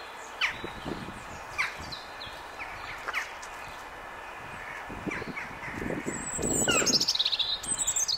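European robin singing: high, thin warbling phrases, loudest near the end, with single falling whistled notes scattered through. A rougher, lower sound comes in about five to seven seconds in.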